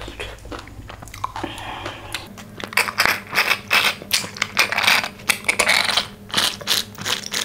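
Close-miked sipping and slurping through a straw from a small juice carton: after a few soft mouth clicks, a quick run of sharp, noisy sucks starts about two and a half seconds in and keeps going until near the end.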